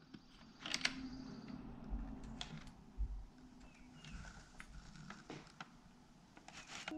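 Round fluted metal pastry cutter being pressed and twisted through a sheet of puff pastry on parchment paper: faint paper rustling and scraping with several sharp clicks, and a couple of dull thumps about two to three seconds in.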